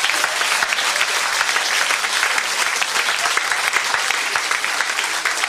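Live audience applauding: dense, steady clapping from many hands.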